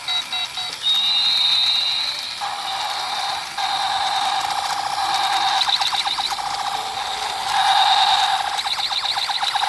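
Electronic toy sound chip playing a synthetic effect: a high and a lower beeping tone, alternating between held warbles and rapid clicking pulses, repeating in cycles.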